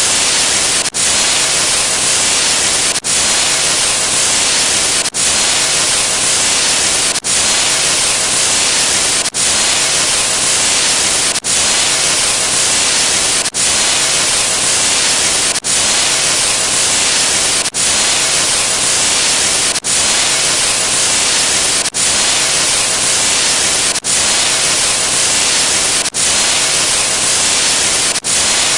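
Loud static sound effect, an even hiss with no tone in it, broken by a brief dip about every two seconds.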